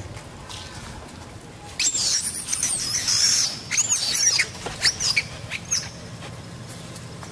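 Young macaques screaming in a string of high, shrill squeals that rise and fall, starting about two seconds in and lasting about four seconds: distress screams of monkeys being chased off.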